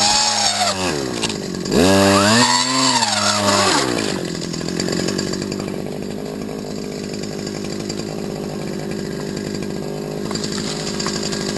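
STIHL FS250 brushcutter's two-stroke engine being revved. One rev falls back at the start, a second rev climbs and drops again about two seconds in, and then the engine settles to a steady idle.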